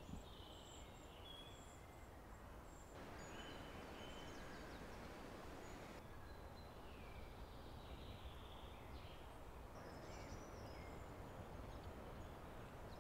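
Quiet woodland ambience with scattered short bird chirps and whistles.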